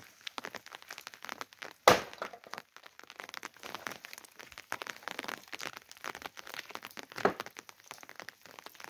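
Continuous crackling and rustling, with two sharp cracks about two seconds in and again near seven seconds.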